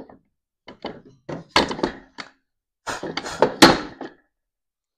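Wooden knocks and thunks as a workpiece and the miter gauge are handled and set down on a table saw's table. There are about a dozen sharp knocks in two clusters, the loudest near the end of each.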